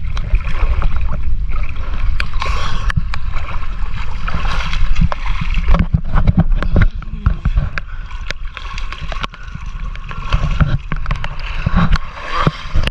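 Pond water sloshing, lapping and splashing against an action camera held at the surface by a swimmer, with a constant low churning and many small sharp splashes and knocks.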